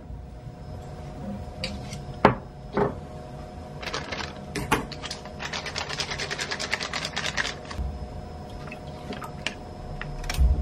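Kitchen handling sounds on a stone countertop: a ceramic cup set down with sharp clicks, then a fast run of rattling ticks, then apple juice poured from a pouch into the cup near the end. A steady appliance hum runs underneath.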